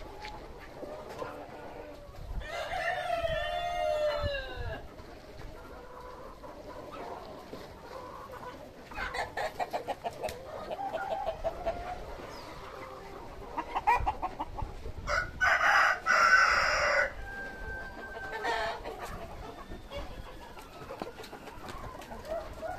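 Black Australorp chickens clucking, with a rooster crowing once about three seconds in. A run of quick clucks follows, then a louder, harsher call a little past the middle.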